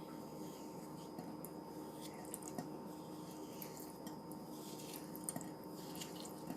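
Slime being played with by hand, giving many small, irregular sticky crackles and squishes over a faint steady hum.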